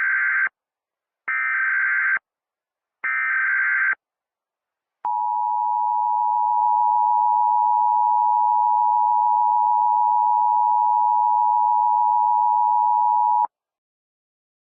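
Emergency Alert System SAME header: three bursts of warbling data tones about a second each, then the EAS attention signal, a steady two-tone beep held for about eight seconds before it cuts off abruptly.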